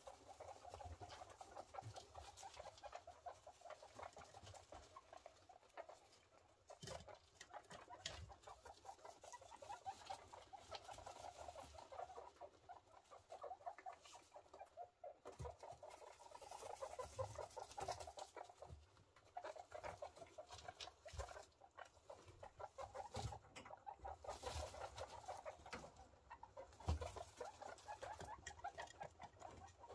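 Guinea pigs making soft, continuous pulsing calls, with a few short breaks, and scattered faint clicks and rustles.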